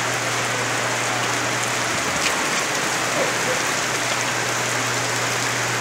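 Heavy rain pouring steadily onto a flooded street, an even hiss with no letup, with a steady low hum underneath.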